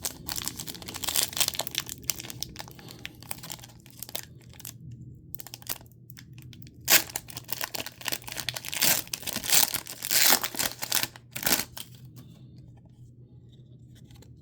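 Foil wrapper of a trading card pack being torn open and crinkled, with irregular rustling as the cards are handled; it quiets near the end.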